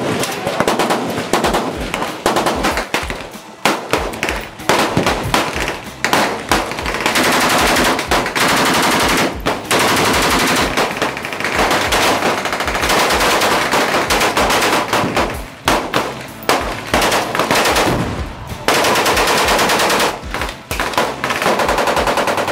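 Fully automatic gunfire in several long bursts with short pauses between them. The sources are a belt-fed MG-42 machine gun firing very rapid shots and an AK-pattern rifle on full auto.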